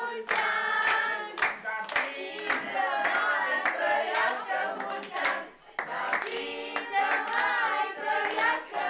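A small group of family and friends singing a birthday song together, clapping in time at about two claps a second.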